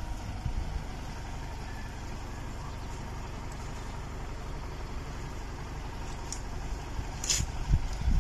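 Tractor engine running steadily, a low even rumble, with a short sharp click about seven seconds in.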